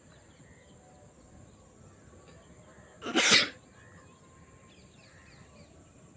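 A person sneezing once, about three seconds in, a short loud burst brought on by sniffing snuff.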